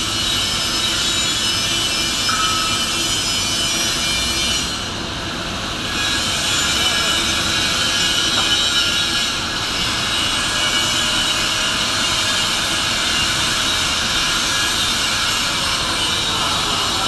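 Loud, steady industrial noise in a large steel-fabrication shop, an even rumble and hiss from machinery. It drops slightly for a moment about five seconds in.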